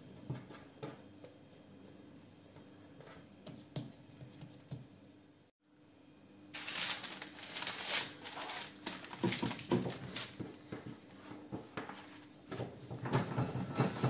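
Soft pats and taps of hands shaping bread dough on a floured worktop. After a brief break about five and a half seconds in, louder crinkling and rustling of parchment paper being handled and spread out, with further handling of the dough near the end.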